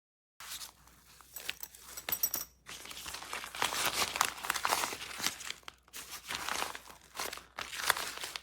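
Crinkling and rustling of material being handled, in irregular bursts with sharp crackles, starting abruptly about half a second in.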